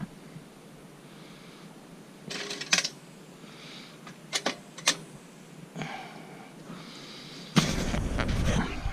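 Light metallic clinks and taps with a few sharp knocks through the middle, as metal camping gear is handled. About three-quarters of the way through a loud rushing rumble sets in.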